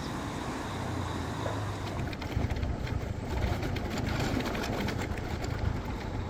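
A car engine running low, then, from about two seconds in, wind rumbling and buffeting the microphone on a moving motorbike.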